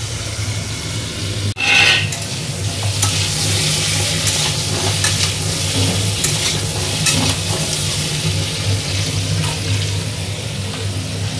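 Mutton curry sizzling in a cooking pot while being stirred, the metal ladle scraping and clicking against the pot, over a steady low hum.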